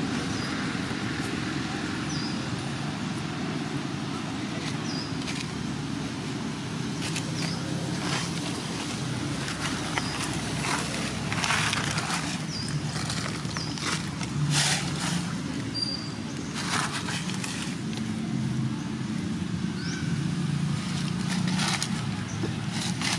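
Outdoor ambience: a steady low rumble like distant engines, with dry leaves crackling and rustling now and then, most busily in the middle, and a few faint short high chirps.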